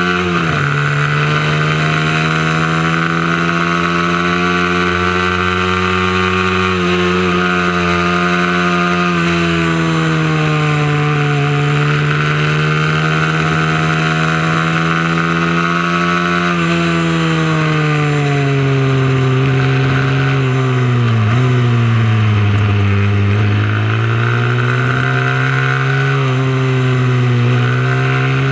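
Mini moto race bike engine running hard around a track, its pitch rising and falling with the revs, dipping lowest a little past the middle before climbing again.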